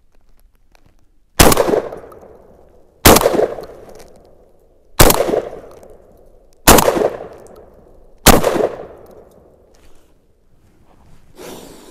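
Five shots from an Emperor Arms Mogul Ultra gas-operated semi-automatic 12-gauge shotgun, fired about one and a half to two seconds apart. Each report trails off in an echo. The load is 2 3/4-inch low-brass 1 1/8 oz birdshot, and the gun cycles every shell.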